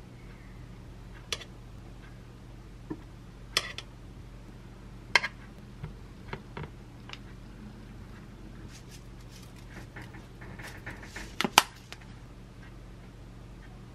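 Metal chopsticks clinking and tapping against a ceramic bowl and plate as pieces of braised short rib are served: a handful of separate light clinks, the sharpest pair about eleven and a half seconds in, over a steady low hum.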